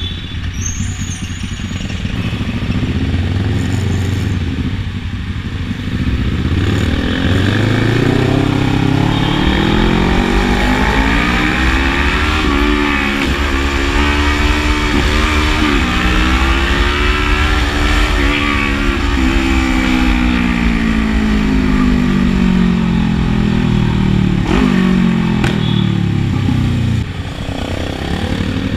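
Kawasaki Ninja motorcycle engine heard from the rider's seat, with wind rushing over the microphone. The engine note climbs as the bike accelerates, dips briefly a few times as it shifts, then falls away steadily as it slows, dropping off near the end.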